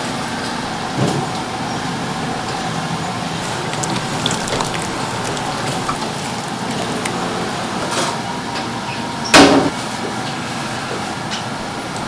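Soybean curds and whey poured and splashing into a cloth-lined wooden tofu press mould, over steady background noise, with a loud knock about nine seconds in.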